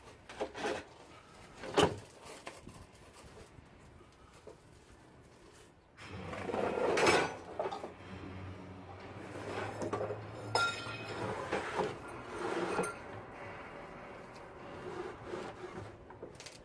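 A couple of sharp knocks, then several seconds of clattering and scraping handling noise with a few light clinks.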